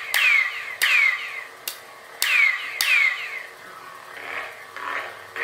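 Lightsaber sound board playing effects through its installed small speaker: five sharp cracks in the first three seconds, each with a quickly falling tone, then softer swelling swing sounds near the end.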